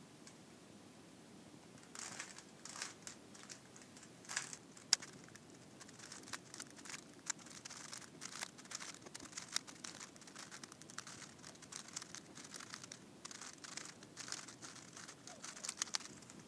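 Plastic Rubik's cube turned rapidly by hand: a fast, irregular run of small clicks and rattles as its layers twist, starting about two seconds in.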